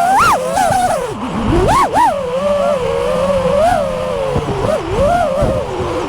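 FPV quadcopter's electric motors whining, the pitch swooping up and down over and over as the throttle is punched and eased, with sharp climbs just after the start and about two seconds in.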